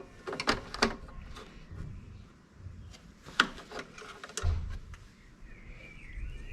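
A few light clicks and knocks of parts being handled while the lawn mower's oil level is checked, with the loudest knock about three and a half seconds in.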